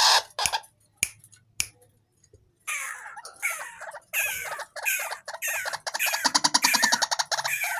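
White-breasted waterhen calling: a few sharp clicks early, then from about three seconds in a string of around seven quick rattling calls, each sliding down in pitch.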